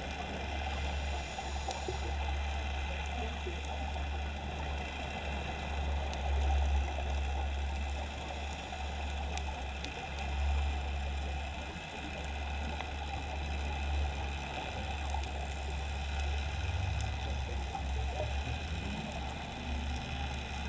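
Underwater ambience picked up by a dive camera: a steady low rumble with an even hiss and scattered faint clicks. Near the end a faint low hum wavers in.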